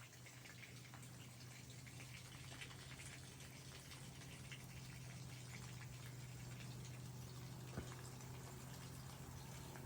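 Near silence: a faint steady low hum with scattered faint ticks, and a single soft click near the end.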